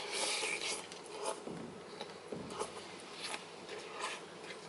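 Quiet eating noises from a person eating instant noodles with a fork: a brief hiss at the start, then faint scattered clicks and scrapes.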